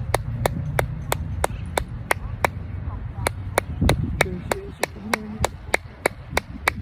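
Sharp clicks repeated at a steady pace of about three a second, used as a recall call to bring a distant dog back, with some low wind rumble underneath.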